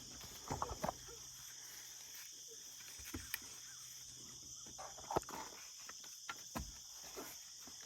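Steady high chirring of an insect chorus, with a few light knocks and clicks scattered through it.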